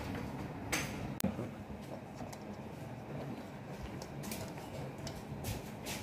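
Hands handling the plastic housing and drive belt of a rotary floor scrubbing machine: light plastic rubbing and knocks, with a couple of sharp clicks about a second in.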